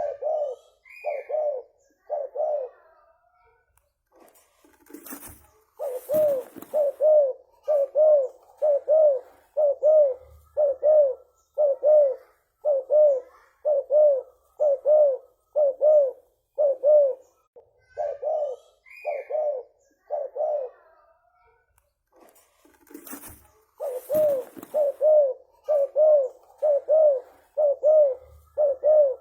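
Spotted dove (tekukur) cooing in long runs of short, low coos, about two a second. The runs pause twice, and each pause holds a brief high rising chirp and a short noisy burst.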